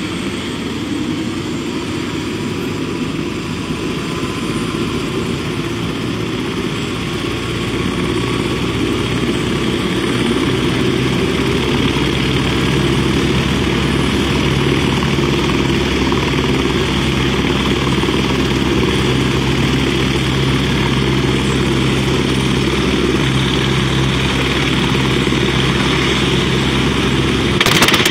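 Turbine helicopter running up for takeoff: steady engine whine and rotor beat, slowly rising in pitch and growing louder. At the very end a sudden loud clatter breaks in as the main rotor blades strike a truck.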